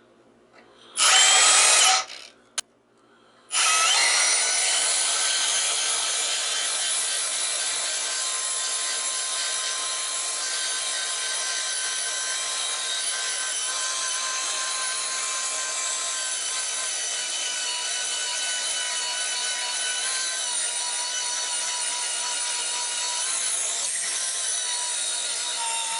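Power tool cutting through a transformer's steel laminations, clamped in a vise, along a scribed line to free the copper windings. A loud burst of about a second comes near the start, then after about three and a half seconds the tool runs steadily through the cut with a high, piercing ring.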